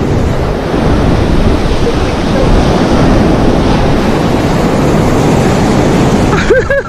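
Sea waves breaking on the beach mixed with wind buffeting the microphone: a steady, loud rush of noise. A voice starts near the end.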